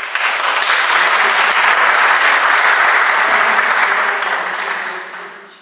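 Audience applauding, starting all at once and dying away over the last second or so.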